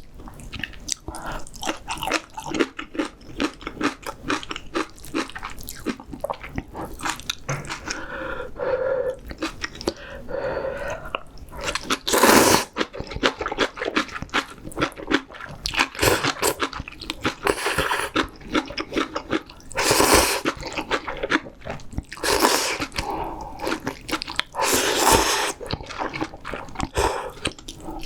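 Close-miked eating sounds: chewing and crunching on a meal of spicy seafood ramyeon with kimchi, in an irregular run of mouth noises broken by several louder, noisy spells of about a second each.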